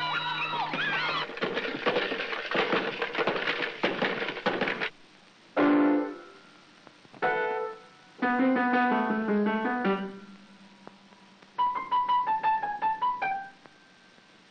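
Early-1930s cartoon soundtrack music. A busy ensemble passage plays for the first few seconds. After that a piano is heard in short, separate runs and little phrases of notes with pauses between them, as if the keys were being stepped on.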